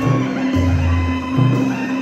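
Loud music with a deep bass line that shifts note about every half second, under a steady held tone.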